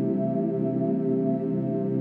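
Ambient background music with long, steady held tones.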